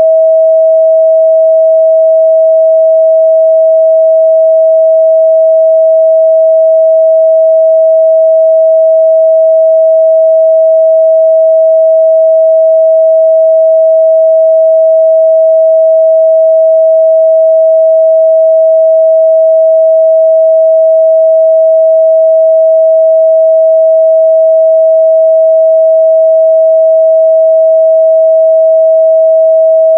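A steady, loud 644 Hz sine-wave test tone, one pure pitch held unchanged throughout, used to check the midrange response of speakers and headphones.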